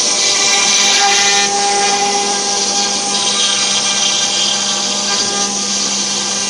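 CNC router spindle running steadily while its bit mills grooves into a wooden door panel: a held high whine over the hiss of wood being cut.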